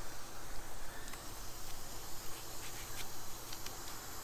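A fillet knife slicing along and under a swordfish backbone: soft cutting with a few faint light ticks, over a steady outdoor hiss.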